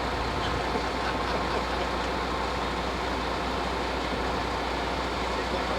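Steady low engine rumble with no rise or fall.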